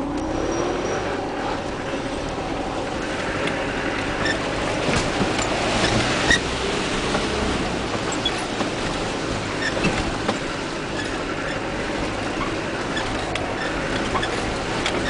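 Land Rover Discovery's turbodiesel engine running under load, heard inside the cab while driving over a rough, rutted track, its revs rising in the first second or so. The cab and body rattle and knock over the bumps throughout.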